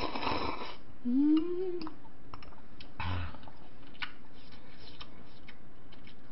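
Close-up eating sounds: a slurp from a small bowl of soup at the start, a brief hum that rises then falls in pitch a little after a second in, then scattered small clicks of chewing and chopsticks or spoon against the bowl.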